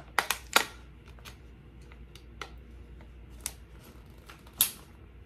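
Thin plastic water bottle crackling and clicking as it is drunk from and handled: three sharp cracks in the first second, a few faint ticks, then one louder click near the end.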